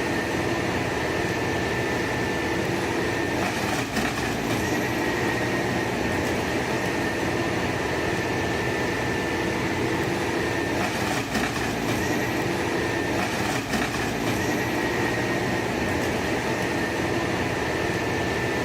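Forestry harvester running: a steady diesel engine drone with a constant high hydraulic whine, and a few sharp knocks from the harvesting head working the log.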